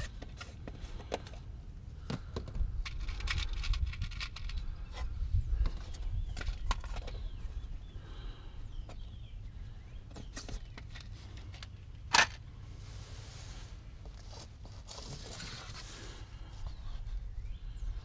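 Small scrapes, rustles and clicks of hands handling fasteners and the battery cable under a car, over a low rumble. One sharp, loud click comes about twelve seconds in.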